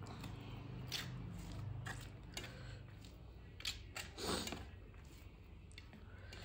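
Fingers mixing soft rice and dal on a steel plate, with soft squishing, scattered small clicks and a few mouth sounds from chewing; one louder brief mouth sound about four seconds in, over a low steady hum.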